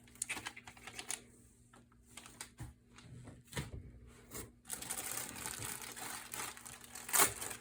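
Items and packaging being handled during an unboxing: scattered light clicks and taps, then steady plastic-packaging rustling and crinkling from a little before halfway, with one louder crackle near the end.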